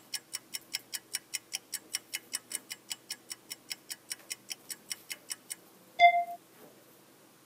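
Fast, even ticking of a wind-up kitchen timer, about four or five ticks a second, stopping about five and a half seconds in; a moment later a single short bell ding.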